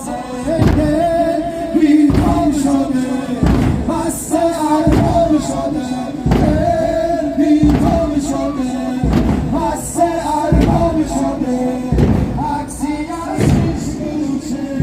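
Shia Muharram mourning music: a slow, even beat about every second and a half, from drums and mourners' chains struck together, under a held, sung melodic line.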